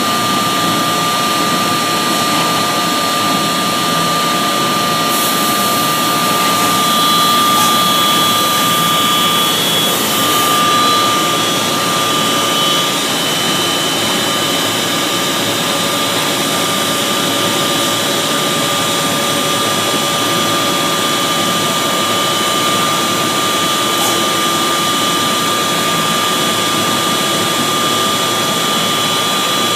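A 2 hp belt-driven machine running with a steady high whine over a rushing noise, with an added hiss from about five to ten seconds in. This is an abnormal noise after a new pulley and V-belt were fitted: the V-belt is slipping, and the owner suspects a bearing fault may be involved.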